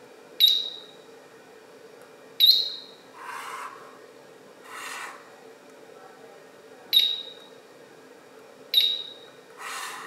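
Four short, high electronic beeps from the Slim Line 2 anti-theft stand, in two pairs, each sounding as a remote's disarm or arm button is pressed. Each beep confirms that the stand has disarmed or armed, the sign that the remote is properly paired.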